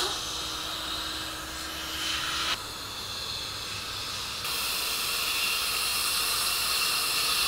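Steady hiss of dental equipment working in the mouth during oral surgery, with a faint low hum in the first part. The hiss changes abruptly about two and a half seconds in and again halfway through.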